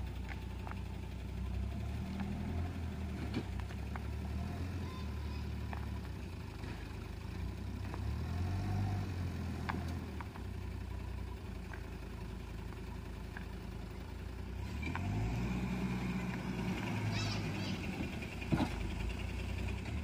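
Backhoe loader's diesel engine idling steadily, a little louder about fifteen seconds in, with a few scattered sharp clicks, the loudest near the end.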